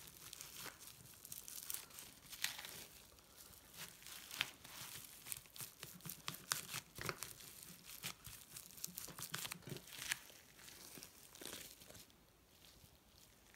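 Bamboo sushi-rolling mat wrapped in cling film, crackling irregularly as hands press and roll it around a sushi roll; the crackles die down near the end.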